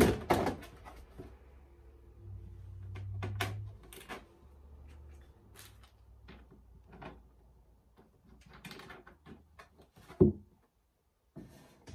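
White plastic storage drawers being handled: scattered clacks and knocks of hollow plastic, a sharp one right at the start and the loudest about ten seconds in, with a low rubbing sound for a couple of seconds early on.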